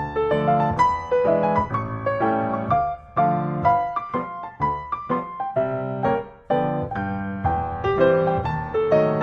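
Background piano music: a steady flow of struck notes, a melody over low chords, each note dying away after it is played.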